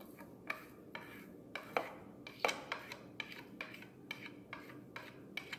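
Small plastic spoon tapping and scraping against a plastic plate while cumin seeds are pushed off it: a dozen or so light, irregular clicks.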